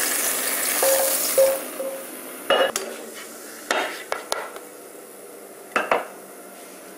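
Stir-fried black fungus sizzling in the wok, dying away over the first second or two after the heat is turned off. Then a cooking utensil knocks and scrapes against the wok about half a dozen times.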